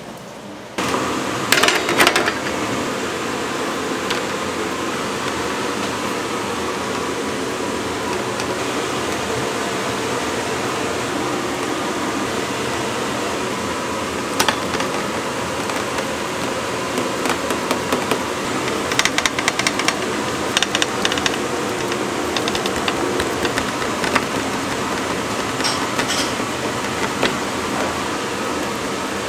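A motor-driven machine running with a steady hum, starting abruptly about a second in, with scattered clicks and clatter now and then.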